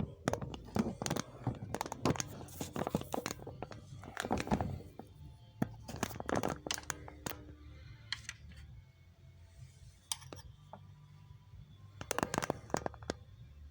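Irregular clicks, knocks and scraping of hands and tools working on engine parts, busiest in the first half, with a second flurry near the end.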